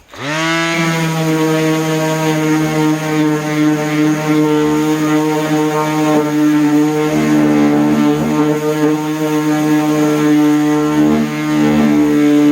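DeWalt palm orbital sander switched on, its motor spinning up within a fraction of a second and then running steadily at full speed, sanding cedar with a 3M Cubitron II disc.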